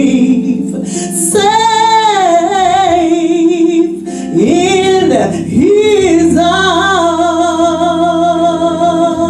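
A woman singing a gospel song into a handheld microphone. She holds long, wordless notes with vibrato and melodic runs between sung lines.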